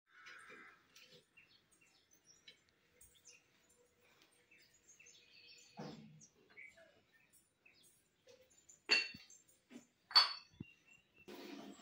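Two sharp clinks of ceramic pottery being handled, about nine and ten seconds in, over faint scattered bird chirps. A softer knock comes a little before the halfway point.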